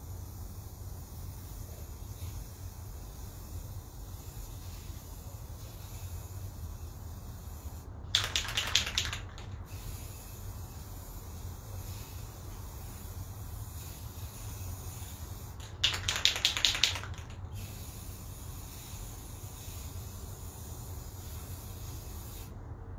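Aerosol spray can spraying paint onto cardboard boxes in two short hissing bursts, each lasting a second or so, about a third and two thirds of the way through, with a slight sputtering flutter in each burst.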